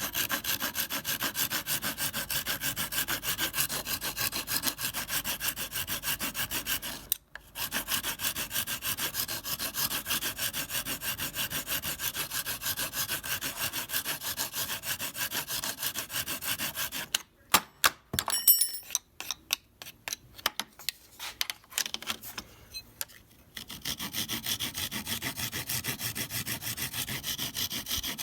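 Hand file rasping the end of a wooden Model T transmission band liner in fast, even back-and-forth strokes. The strokes break off briefly about seven seconds in. From about seventeen to twenty-three seconds they give way to scattered clicks and knocks of handling, then resume.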